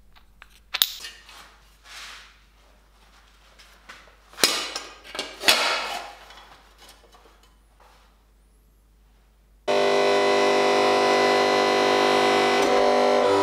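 A few sharp clanks and knocks, each with a short ringing tail, from work on steel armour plate. After a short quiet stretch, guitar music starts abruptly near the end and plays on loudly.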